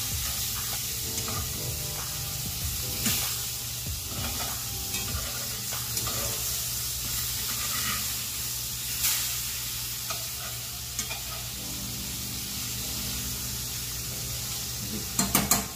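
Flour-dredged pork chops frying in oil and butter in a skillet on medium-high heat: a steady sizzle. Metal tongs turning the chops give a few sharp clicks, with a quick clatter near the end.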